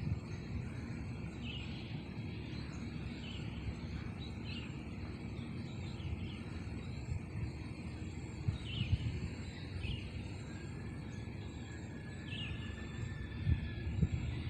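Small birds chirping in a morning outdoor ambience: short high chirps repeated about once a second, with a longer drawn-out call once near the middle. Underneath is a faint steady high insect buzz and a low steady rumble.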